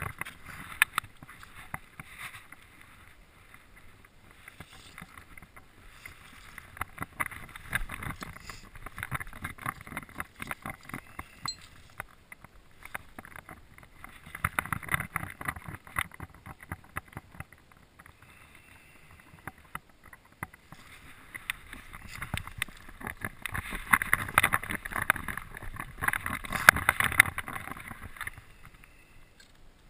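Close rustling and crackling from hands, clothing and gravel while a channel catfish is held and unhooked, coming in several bursts with quieter stretches between.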